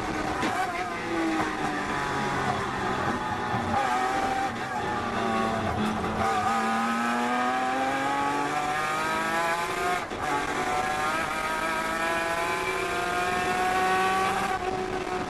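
Datsun 240Z race car's straight-six engine heard from inside the cockpit at racing speed. The revs fall over the first few seconds, then climb hard, break briefly for an upshift about ten seconds in, climb again, and drop near the end.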